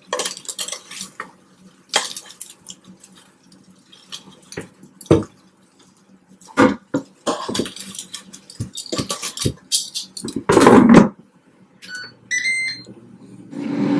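Metal tongs clicking and scraping against a nonstick air fryer basket as chicken legs are turned over. About eleven seconds in the basket slides back into the Ninja air fryer with a loud clunk, the control panel beeps a few times, and near the end the fryer's fan starts with a steady hum.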